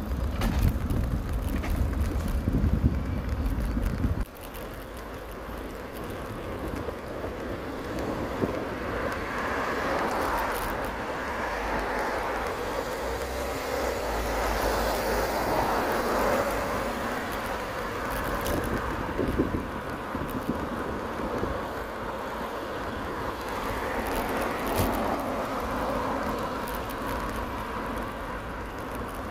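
Wind rumbling heavily on the microphone, cutting off about four seconds in. After that comes a steady outdoor rush of wind and road noise that swells and then eases.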